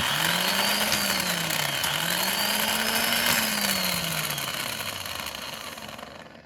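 Electric motor whirring steadily, its pitch rising and falling twice as its speed varies, then fading out near the end.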